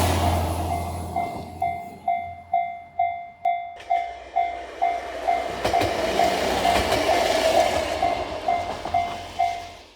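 Japanese level-crossing alarm ringing its electronic ding about twice a second while a train runs past. The train noise is loud at first, dies down, then swells again from about four seconds in.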